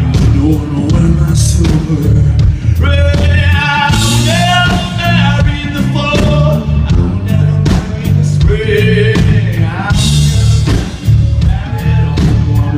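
Live rock concert music: a male voice singing over a loud band with bass and a steady drum beat.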